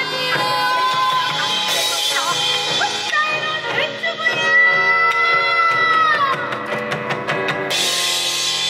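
Korean traditional ensemble music with a female pansori-style vocal, over gayageum and daegeum. A long held note in the middle slides down about six seconds in, and the ensemble grows fuller near the end.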